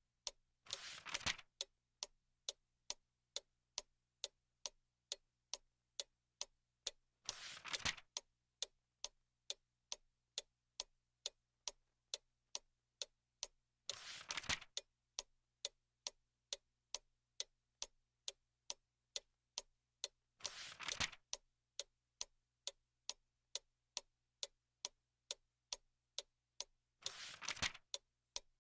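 A clock ticking steadily, about two ticks a second. About every six and a half seconds there is a short rustle, a book's page being turned.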